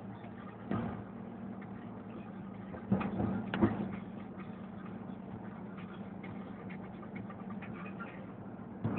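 MAN TGA 410 truck's diesel engine running steadily while driving, heard from inside the cab. A few knocks and rattles come through, the loudest cluster about three to four seconds in.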